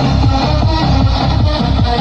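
Electronic dance music played loud through a portable Bluetooth speaker on a bass sound check, with a deep beat of falling-pitch bass hits about four a second.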